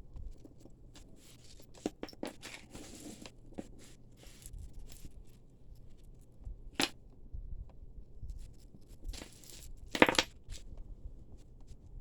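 Small clicks and rustling from hands working at a tangled clump of costume jewelry chains. A sharper click comes about seven seconds in, and the loudest knock about ten seconds in.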